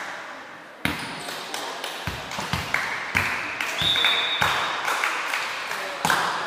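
Volleyball thuds and bounces echoing in a large gym, with a brief squeak partway through. A sharper hit comes just after six seconds as a player serves.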